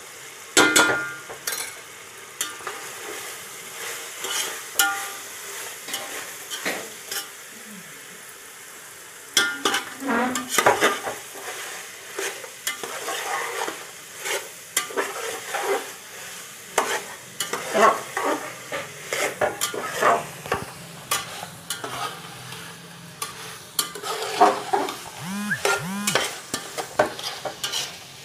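Spatula scraping and knocking against a metal cooking pot in irregular strokes as chopped vegetables are stirred and sautéed in hot oil, over a steady sizzle.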